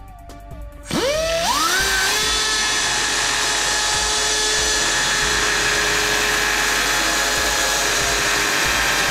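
A high-speed rotary cutting tool spins up about a second in, its whine rising quickly and then settling, and runs steadily at full speed while cutting away material.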